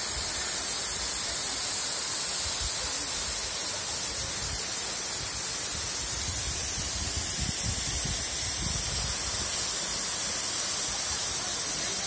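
Waterfall of thin streams pouring down a rock face and splashing onto rocks and a pool: a steady, hissing rush of falling water and spray. A low rumble comes and goes, most around the middle.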